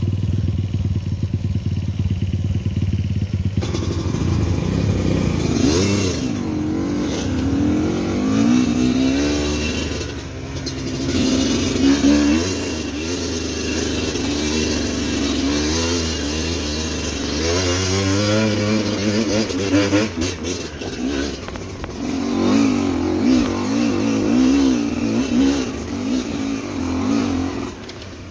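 Motorcycle engine under load on a steep, rough climb, revving up and down over and over as the throttle is worked.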